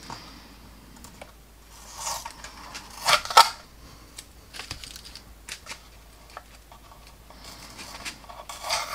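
Hands handling a plastic scale model and peeling masking tape from its canopy: scattered small clicks and scratchy rustles, loudest about three seconds in.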